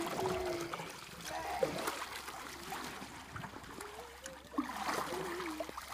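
Kayak paddles dipping and splashing in pool water, with water trickling and dripping off the blades as two people paddle an inflatable two-seat kayak. A few short voice sounds come in between the splashes.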